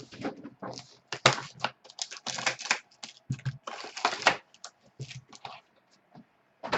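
Irregular clicking, rustling and crinkling as a trading card box and its packs are opened and the cards handled.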